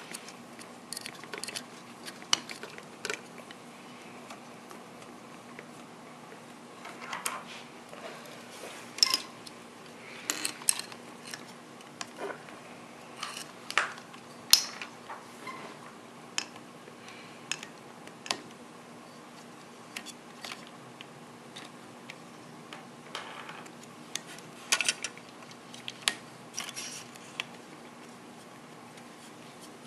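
Scattered small clicks, taps and scrapes of metal thumb screws and washers being turned down by hand against a carbon-fibre plate, with rubber isolation bushings between them. A faint steady hum runs underneath.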